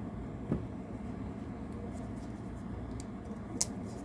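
Pocket knives being handled: a few light clicks and taps, one about half a second in and two more near the end, over a faint steady room hum.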